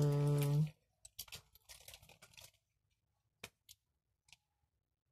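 A voice holds a drawn-out 'uhh' for about a second at the start. Faint rustling follows, then a computer mouse clicks three times a little past the middle.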